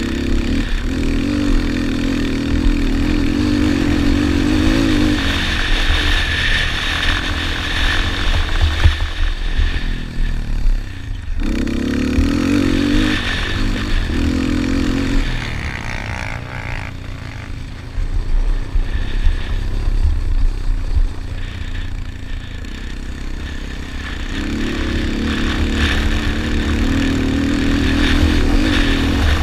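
Yamaha Raptor 250 quad's single-cylinder four-stroke engine racing, revving up and backing off repeatedly, dropping back for several seconds past the middle before pulling hard again near the end. Heavy wind rumble on the microphone runs underneath.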